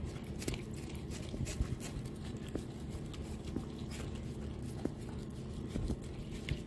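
American Bully puppy licking at a sunny-side-up fried egg: irregular small wet licks and mouth clicks.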